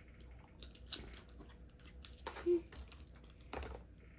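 Sticky slime being pulled and worked off a hand, making a scattering of short, wet clicks and crackles.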